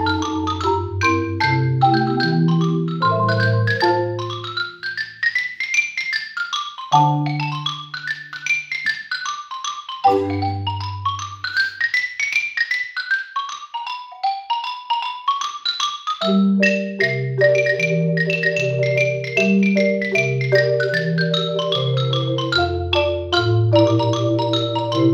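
Yamaha concert marimba played solo with mallets: fast runs of notes sweep up and down the keyboard over low bass notes. From about two-thirds through, a repeated chord in the middle register sounds over a moving bass line.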